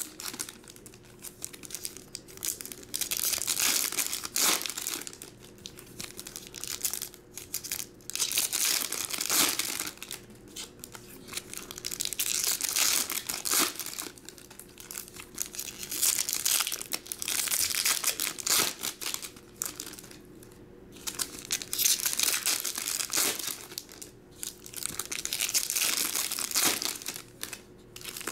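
Foil trading-card pack wrappers crinkling and being torn open, in repeated bursts every second or two.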